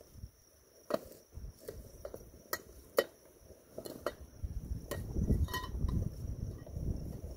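Kayak gear being packed into a backpack-style carry bag: scattered light clicks and clinks of hard parts knocking together, with rustling and a low rumble of wind on the microphone.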